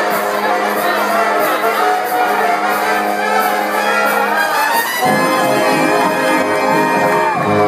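Swing jazz band music with a brass section of trumpets and trombones playing sustained chords; the harmony shifts to a new chord about five seconds in.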